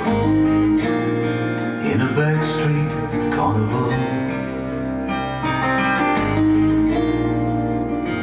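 A song played through a pair of Neat Petite bookshelf loudspeakers: an instrumental passage of acoustic guitar over a bass line, steady and without singing.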